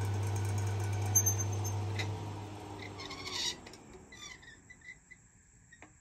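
Dehumidifier's 37-watt fan motor running with a steady hum, then winding down: the hum and its whine fall in pitch and fade out over a few seconds. A few faint high squeaks come as it slows, which the owner takes for a part needing lubricant.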